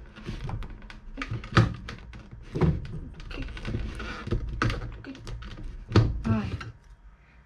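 Irregular taps, clicks and knocks of kitchen utensils and containers being handled on a counter, a few of them heavier thuds.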